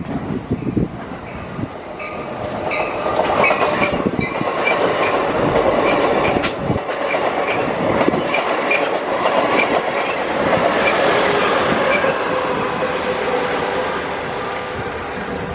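Amtrak bi-level passenger train rolling past close by, its wheels clacking over the rail joints in a steady rhythm under a continuous rumble. A brief high wheel squeal comes about halfway through.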